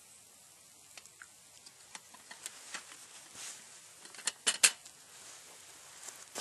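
Enamel coffee percolator and cup being handled over a campfire grate: scattered light clicks and knocks, then a quick run of three sharp metallic clanks about four and a half seconds in.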